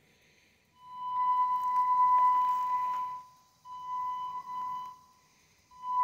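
Brushed wheelchair drive motors of a home-built RC zero-turn mower, fed by 90-amp brushed speed controllers, whining at one steady high pitch as the drive is throttled: three stretches, starting about a second in, again around the middle, and again near the end, with quiet between.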